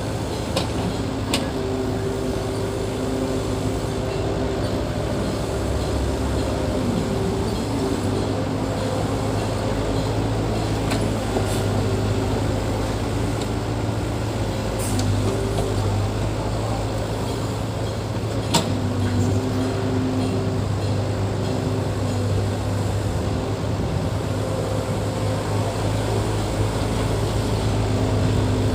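Heavy earth-moving machinery's diesel engine running steadily, with a few sharp clicks or knocks over it, the loudest about two-thirds of the way through.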